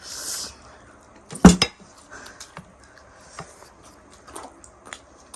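Clatter of dishes and cutlery during a meal: a loud double knock of something hard set down on a hard surface about a second and a half in, then scattered small clicks.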